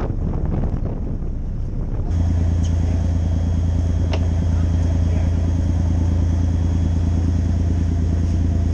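Fishing boat's engine running steadily under way, a deep even hum, coming in suddenly about two seconds in after wind and water noise on the microphone.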